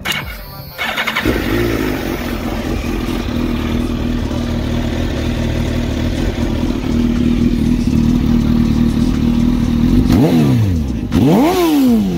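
2005 Suzuki GSX-R1000's inline-four engine starting about a second in and idling steadily through a Yoshimura aftermarket exhaust, then revved twice near the end, each rev rising and falling in pitch.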